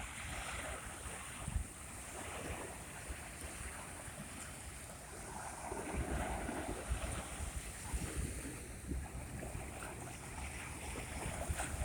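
Sea waves washing ashore, with wind buffeting the microphone; a wave swells up about six seconds in.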